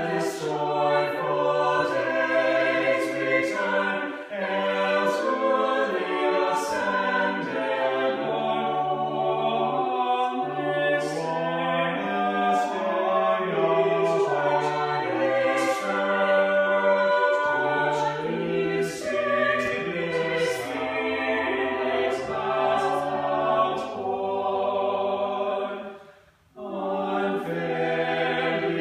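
Choir singing in harmony, holding sustained notes, with one short break between phrases near the end.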